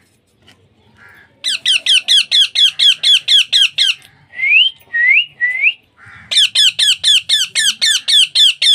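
Baby parrot calling in fast runs of short, shrill squawks, about five a second, with three rising whistled calls in the middle: the repeated begging calls of a hand-fed parrot chick.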